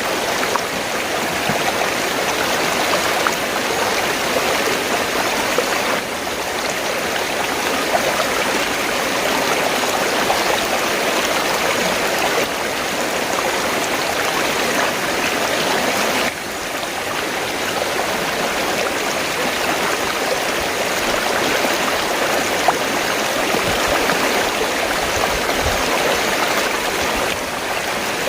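River water flowing steadily, an even rushing wash with no pauses; its level drops slightly and abruptly a couple of times.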